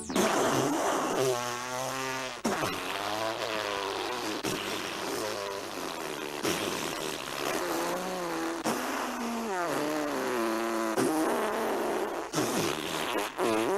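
A long run of drawn-out burps, one after another, each lasting about two seconds with a wobbling, wavering pitch.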